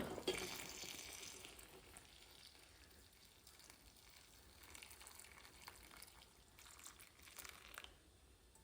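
Faint sizzling and crackling of milk simmering in a pot over a gas flame. A soft hiss fades over the first two seconds, and scattered light crackles come later.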